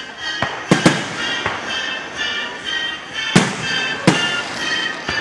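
Aerial firework shells bursting: several sharp bangs, the loudest a close pair about a second in and two more between three and four seconds in, over music.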